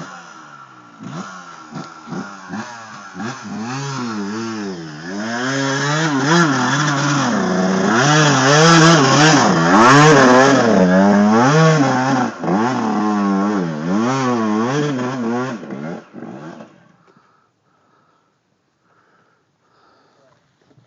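Dirt bike engine revving up and down over and over as the rider works it up a rocky climb. It is loudest as the bike passes close by, then stops abruptly about sixteen seconds in.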